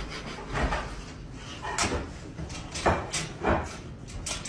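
A dog pawing at the door of a metal crate, rattling the door and its slide-bolt latch in a string of uneven clanks.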